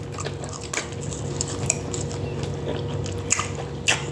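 Close-up eating sounds of a person biting and chewing a burger, with scattered sharp wet clicks and smacks.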